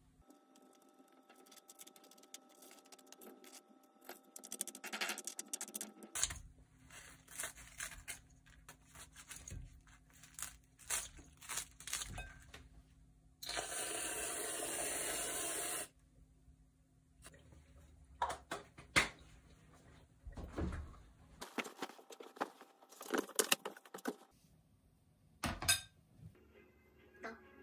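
Handling sounds of making jam toast: a fork scraping and clinking on a ceramic plate while jam is spread and the toast torn apart, then a can of whipped cream spraying in one steady hiss for about two and a half seconds, followed by more scattered clinks and knocks.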